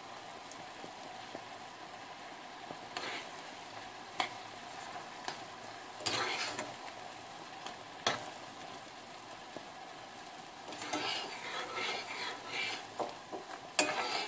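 Orange peel cubes bubbling in sugar syrup reduced toward a thick, honey-like stage in a saucepan, a steady sizzling hiss. A metal spoon stirs them, clinking sharply against the pan a few times, with more scraping near the end.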